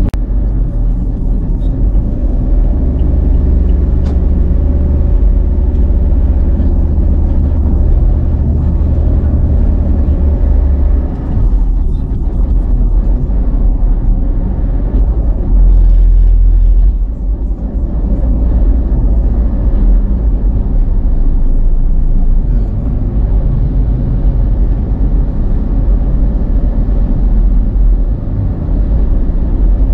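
Car driving along a road, heard from inside the cabin: a steady low rumble of engine and tyre noise, briefly louder about halfway through.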